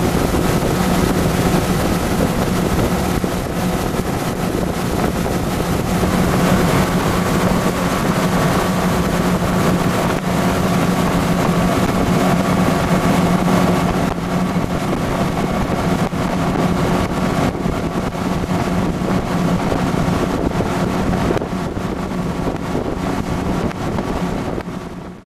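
Yamaha 50 four-stroke outboard running steadily at speed, with water rushing behind the transom and wind on the microphone. The sound drops a little near the end, then cuts off suddenly.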